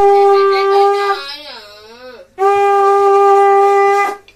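Conch shell (shankha) blown in two long, steady blasts as a ritual call, the first wavering and dropping in pitch as the breath runs out about a second in, the second held from about halfway until it cuts off near the end.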